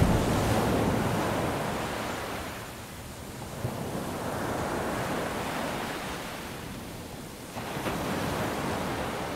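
Sea waves washing onto the shore, a steady rush that swells and ebbs, surging again about four seconds in and near the end.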